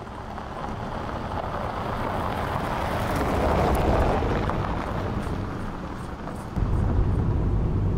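A Chevrolet sedan driving past on a loose gravel dirt road: the tyre and engine noise grows louder, peaks about four seconds in as it goes by, then fades as it drives away. Near the end a low rumble sets in suddenly.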